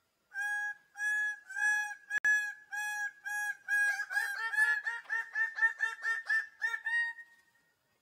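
Male greater birds-of-paradise giving their display calls: a series of short, clear 'wauk' calls, about one and a half a second at first, that speed up about four seconds in into a rapid run of overlapping calls, rising slightly in pitch, before stopping. A single sharp click about two seconds in.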